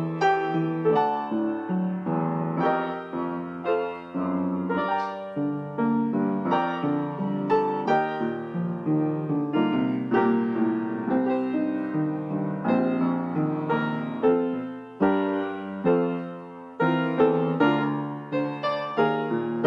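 Piano music: a continuous run of struck notes and chords, each left to ring and fade.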